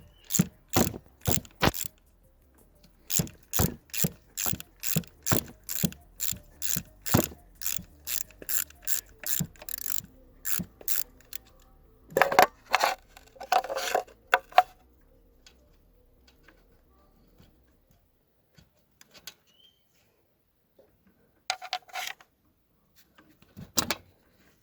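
Socket ratchet wrench clicking steadily, about two to three clicks a second, as a bolt is turned with an 8 mm socket, with a short pause about two seconds in. Around halfway there are a few louder metallic clatters of tools or parts, then it goes mostly quiet, with a couple of brief clinks near the end.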